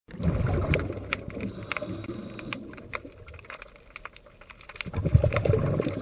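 Underwater sound through a camera housing: a low rush of moving water that swells at the start and again near the end, with scattered sharp clicks throughout.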